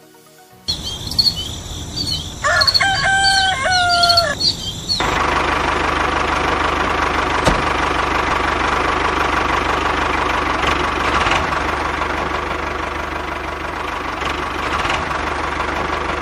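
Birds chirp and a rooster crows in a farmyard, then from about five seconds in a steady motor sound runs as a homemade mini model tractor drives along pulling its trolley.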